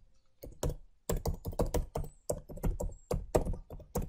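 Typing on a computer keyboard: a couple of key clicks, then from about a second in a quick, uneven run of keystrokes, about twenty in all.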